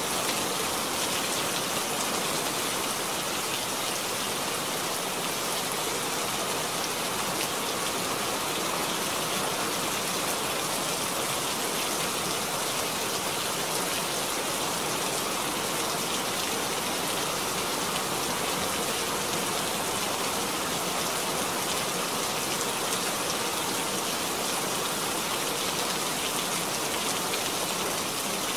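Steady, even rain, the drops splashing onto standing water.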